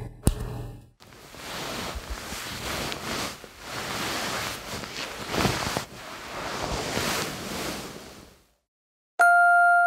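A few sharp clicks over a low hum, then a rushing noise that swells and fades several times and stops about eight and a half seconds in. After a short silence a glockenspiel melody begins.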